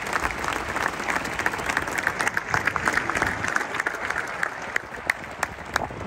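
Stadium crowd applauding, the dense applause thinning to scattered claps near the end.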